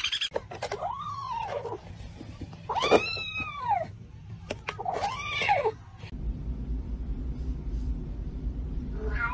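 A kitten gives three drawn-out, rising-and-falling meows about two seconds apart, crying out while being disturbed at its food bowl. A low steady hum follows in the last few seconds.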